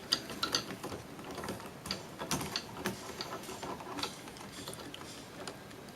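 Irregular small clicks and taps of hands working a small plug connector loose on a vintage autopilot module.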